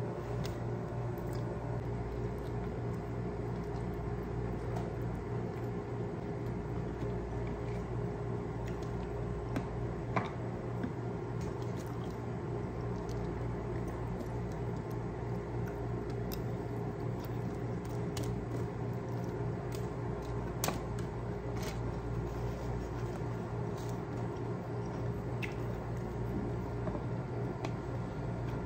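A person eating by hand: wet chewing and squishing of food, with scattered light clicks and taps, over a steady low hum.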